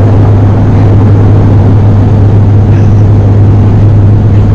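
Airliner cabin noise from a passenger seat: the engines' steady, loud drone with a constant low hum.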